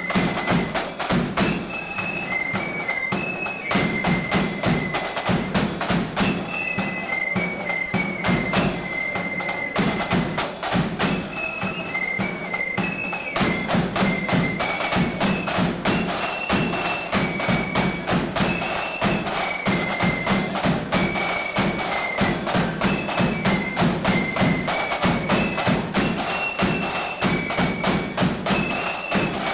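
Marching flute band playing a tune: high flutes carry the melody over dense, rapid drumming.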